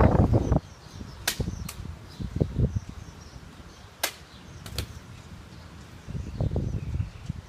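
Katana cutting test on a rolled-mat target: a loud noisy burst fades out about half a second in, then a few sharp clicks and soft knocks as the cut target pieces are handled, with faint birdsong behind.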